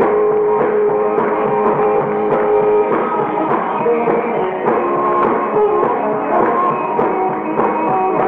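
Live rock and roll band playing an instrumental break between sung verses: a guitar lead over drums and bass, with one long held note in the first three seconds before the melody moves on. The live recording is dull and lo-fi, with no top end.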